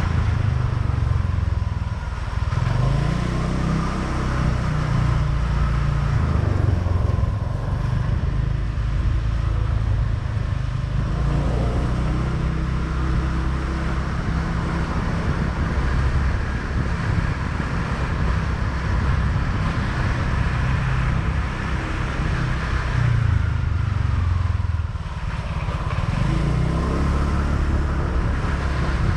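A motorbike running while being ridden, with a steady low rumble of road and wind. Its engine note changes speed a couple of times, near the start and again near the end.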